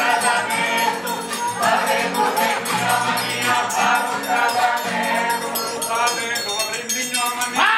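Theatre cast singing a lively song together in chorus over live instrumental accompaniment, with percussion keeping the rhythm; the song stops near the end.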